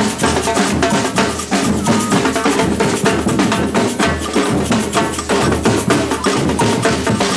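Batucada percussion ensemble playing a dense, steady samba rhythm: deep bass drums under snare drums and other struck drums, with no break.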